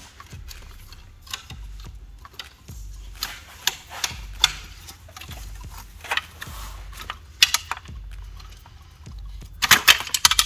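Scattered metallic clicks and knocks of a pry bar and fuel rail being worked loose from the engine's lower intake, over a low steady hum. A quick run of louder clicks comes near the end.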